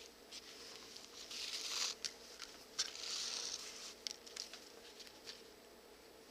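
Hand-sewing leather: waxed thread drawn through the stitch holes with a long swish twice, about a second and a half in and again near three seconds, among small clicks and rustles of the needle and leather being handled.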